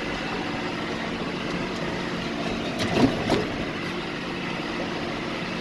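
Farm tractor engine running steadily while pulling a hay rake, with a steady low hum. Two short louder knocks come about three seconds in.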